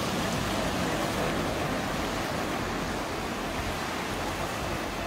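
Ocean surf breaking and washing up the beach in shallow water, a steady wash of noise.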